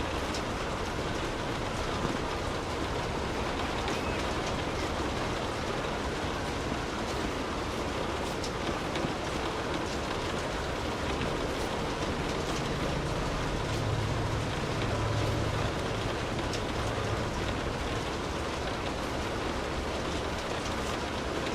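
Steady rain falling, with scattered drop ticks in an even hiss. A low hum swells in about twelve seconds in and fades out again some six seconds later.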